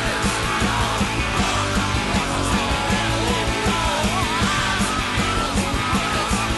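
Rock soundtrack music with a steady drum beat and a band playing, a wavering melody line coming in about a third of the way through.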